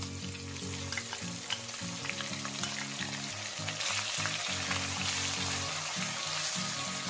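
Onion paste hitting hot oil in an iron kadhai: the oil crackles and spits, then the sizzle swells about halfway through as the paste spreads in the oil. A wooden spatula starts stirring it near the end.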